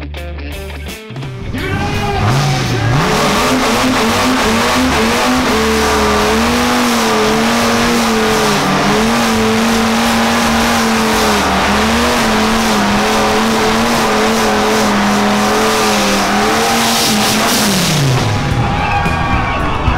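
A car doing a burnout. The engine revs up about a second and a half in and is held high, its pitch wavering, for about fifteen seconds while the spinning tyres squeal and hiss. Then the revs drop back near the end.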